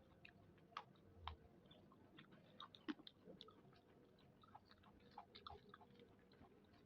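Faint eating sounds: a person chewing, with scattered small irregular clicks and crunches.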